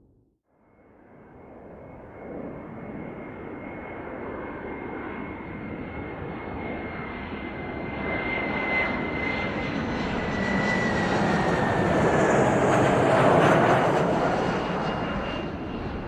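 Jet airplane passing by: engine noise builds from quiet with a steady high whine on top. The whine slides down in pitch as the plane goes past, and the noise is loudest about thirteen seconds in, then begins to fade.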